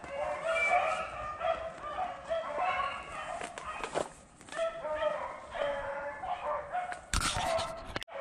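A pack of beagles baying on a rabbit's trail, with many short calls overlapping one another. A brief burst of noise comes about seven seconds in.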